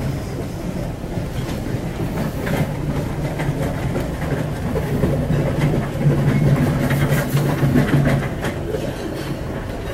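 Pilot boat's diesel engines droning steadily under the rush and hiss of its bow wave and wake, louder between about six and eight seconds in as the boat runs close alongside.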